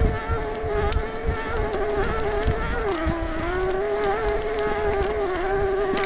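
Mid-drive motor of a 2022 Specialized Turbo Levo S-Works e-mountain bike whining loudly under pedalling: a steady high whine that dips slightly in pitch about three seconds in and comes back up. The owner calls it a horrible grinding sound, far louder than the motor should be, and a shop told him something is wrong with the motor.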